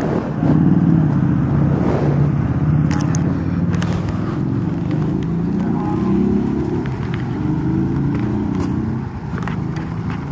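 A motor vehicle engine running close by, its pitch wandering up and down, with scattered clicks and knocks from handling.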